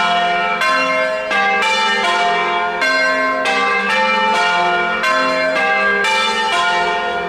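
A peal of church bells rung in changes: a steady run of bell strikes, about two to three a second, each one ringing on into the next.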